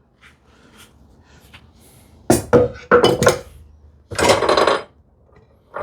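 A plywood drawer bottom knocking against the wooden drawer and then scraping as it is pushed in to test its fit: a sharp knock about two seconds in and a longer scrape near the end. The panel is slightly oversized.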